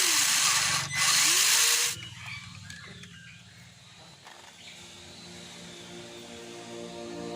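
A small electric motor whirs loudly, its pitch dipping and recovering, then cuts off about two seconds in, leaving a faint low hum. Soft music fades in near the end.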